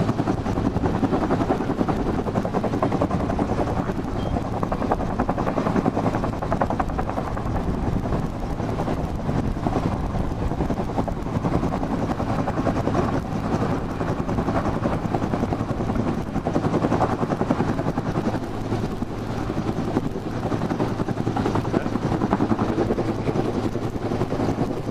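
Rescue helicopter hovering close overhead while it lowers a load on its hoist. The rotor chop and engine run loud and steady, without a break.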